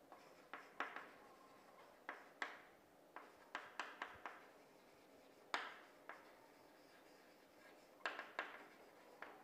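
Chalk writing on a blackboard: about a dozen irregular sharp taps, each with a brief scratchy tail, the loudest about halfway through.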